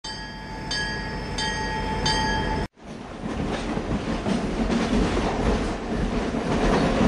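Train running on rails, dubbed onto a Lego train scene: a noisy rumble with a few steady high whining tones for the first couple of seconds. It cuts off abruptly, then picks up again as a heavier rumbling clatter.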